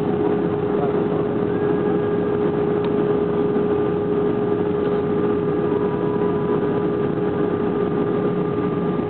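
Steady engine and airflow noise inside the cabin of an Airbus A321 airliner, with a constant humming tone running through it.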